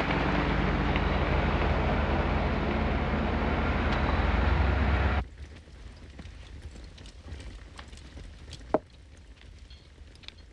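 A car running and driving, a steady rumbling engine-and-road noise that cuts off suddenly about five seconds in. Then a quiet dining room with light clinks of dishes and cutlery, and one sharper clink near the end.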